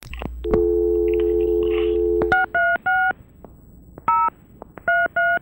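A click, then a telephone dial tone held for about two seconds, then touch-tone (DTMF) keypad beeps as a number is dialed: six short tones, three in quick succession, then three more spaced out, heard over the phone line.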